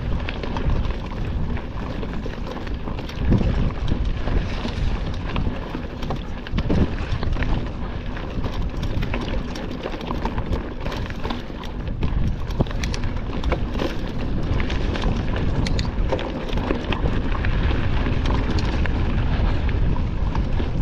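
Mountain bike ridden over rough ground: tyre rumble and frame rattle with frequent knocks, the loudest about three seconds in, under wind buffeting on the microphone.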